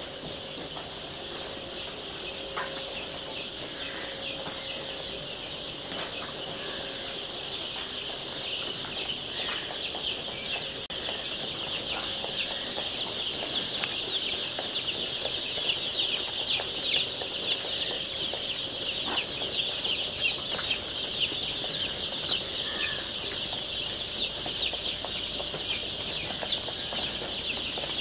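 A large flock of chicks peeping continuously: a dense chorus of short, high, downward-sliding cheeps. It grows louder and busier after about ten seconds.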